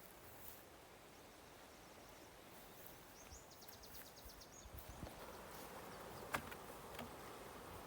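Faint outdoor background hiss, with a short run of rapid high chirps a little before the middle and a single sharp click near the end.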